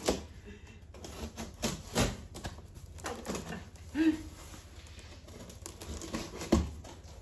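Packing tape on a cardboard box being slit with a small cutter: scattered scrapes, taps and crinkles of tape and cardboard, with a louder thump against the box about six and a half seconds in.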